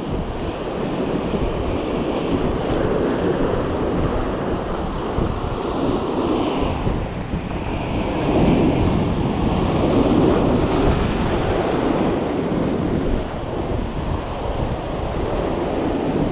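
Sea surf breaking and washing over shore rocks, a continuous rushing that swells louder about eight seconds in, with wind buffeting the microphone.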